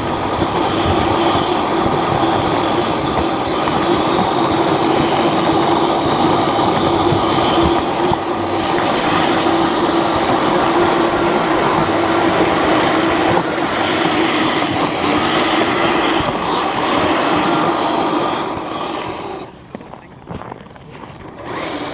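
Several Kyosho Blizzard radio-controlled snowcats running together, a steady motor and gear whine with the clatter of their tracks. It drops away sharply near the end.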